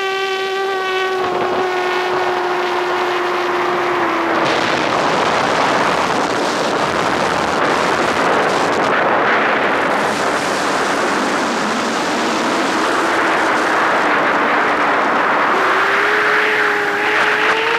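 FPV drone's electric motors and propellers in flight: a steady high whine for the first few seconds, then a loud rushing of propeller wash, with the whine rising in pitch again near the end as the throttle comes up.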